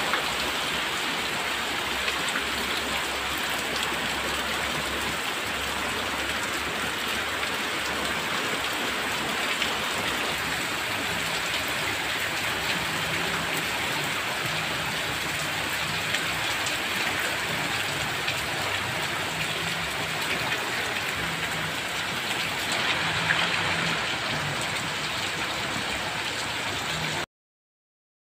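Steady rain pouring down, splashing into puddled ground and pattering on leaves. It cuts off suddenly near the end.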